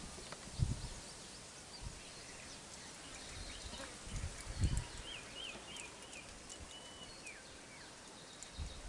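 Quiet outdoor ambience with faint bird calls, short series of wavy chirps and a falling whistle, and a few low thuds.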